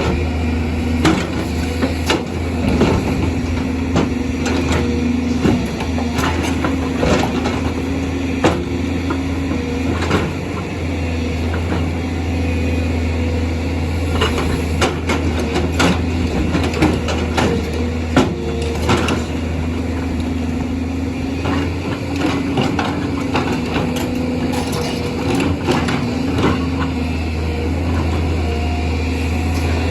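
Excavator's diesel engine running steadily under load, with a hydraulic whine that shifts in pitch now and then, and irregular knocks and clatter of stones and the steel bucket as rocks are worked and broken.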